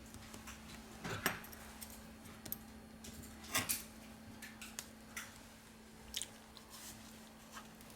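Small scattered clicks and taps from hand tools and parts being handled during an iPad reassembly, with two sharper knocks about a second in and midway, over a faint steady hum.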